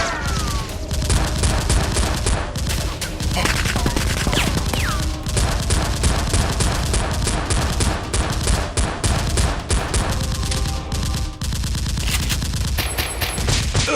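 Sustained rapid gunfire, automatic bursts of many shots a second with hardly a break, as used for the blaster fights in a Nerf battle film. A few short falling whistle-like tones cut through near the start and again around four seconds in.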